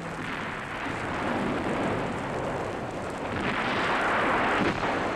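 Bombardment sound effects: a dense, continuous rumble of shell and bomb explosions, swelling louder about three and a half seconds in.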